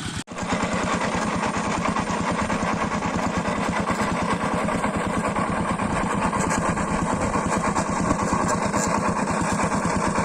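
Small single-cylinder diesel engine running steadily, with a fast, even run of firing pulses. The sound cuts out for an instant just after the start, then carries on unchanged.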